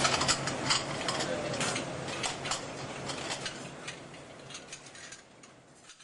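Flight-type dishwasher's pegged conveyor running, with many irregular sharp clinks of china plates against each other and the pegs as they are lifted off and stacked. The whole sound fades out gradually.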